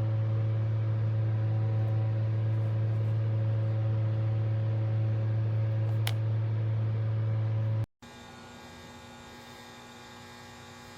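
Steady low hum, cutting off abruptly about eight seconds in and leaving a much fainter hum.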